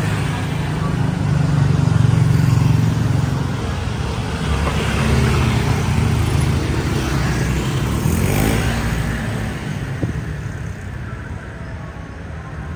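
Street traffic: engines of passing vehicles, loudest about two seconds in and swelling again in the middle as one goes by close, then quieter over the last few seconds.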